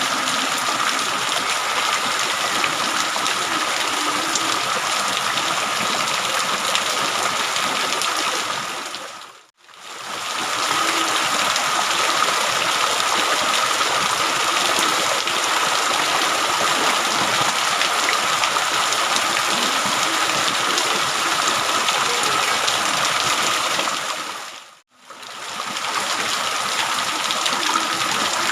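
Steady rain, a dense hiss of falling water, that fades out to silence and back in twice, about fifteen seconds apart.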